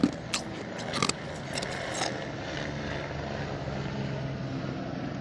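A few sharp crunches of refrozen powdery ice in the first two seconds, over a steady low hum inside the car.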